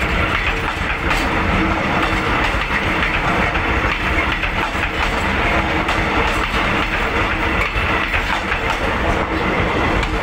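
Philippine National Railways passenger train cars rolling past at close range: a steady, loud rumble of wheels on the rails with scattered clicks as the wheels cross rail joints.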